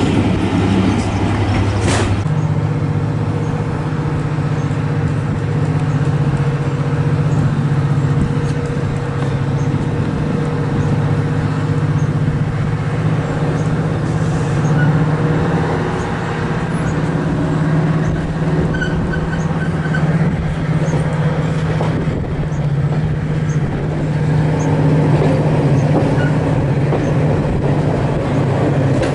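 Diesel locomotive engine working steadily with a low hum as it hauls a train of coaches slowly out along a platform, heard from an open carriage window. There is a sharp clunk about two seconds in, after which the engine note rises, and it eases back near the end.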